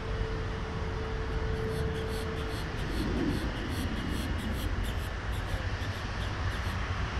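Steady low rumble and hiss of jet engines at an airport, with a faint steady whine that stops about three seconds in. Light high-pitched ticks run over it from about a second and a half in.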